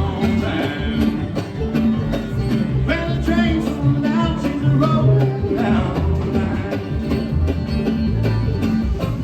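An acoustic string band plays an up-tempo bluegrass-style tune, with plucked strings and a bass line stepping from note to note.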